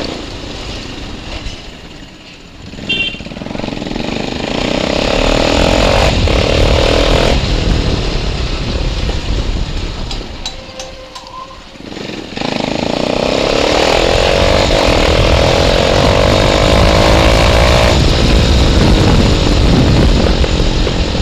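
Bajaj Pulsar 220 motorcycle with an aftermarket exhaust, being ridden hard. The engine note rises and falls as it revs, dropping away around two seconds in and again about ten seconds in before climbing back loud.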